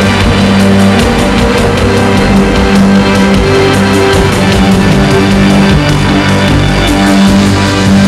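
Loud rock music with a steady drum beat over held low bass notes.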